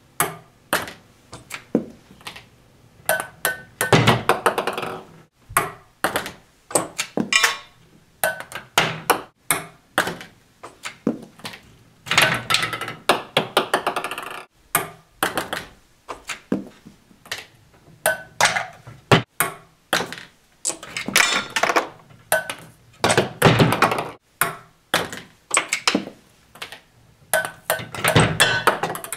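A ping-pong ball dropping and bouncing on wooden boards and hard surfaces, over and over in short runs of quick clicks that speed up as it settles. Rolls of masking tape and wooden pieces knock and rattle along with it.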